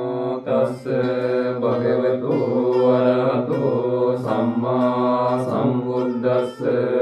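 Buddhist pirith chanting in Pali: a sing-song recitation on long held syllables, in phrases with short breaths between them.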